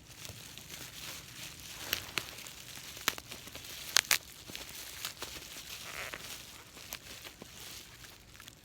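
Crinkling and tearing of packaging being handled, with a few sharp clicks about 2, 3 and 4 seconds in.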